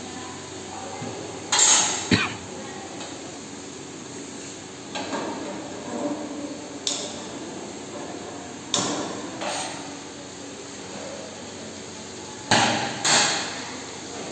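A metal spoon stirring prawn masala in a frying pan on a gas burner, giving about seven sharp clanks as it strikes the pan, several in pairs about half a second apart, with softer scraping between them over a low, steady hiss.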